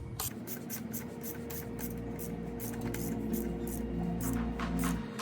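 Ratchet wrench with a 17 mm socket running down flywheel bolts: a quick, even series of pawl clicks, about four to five a second.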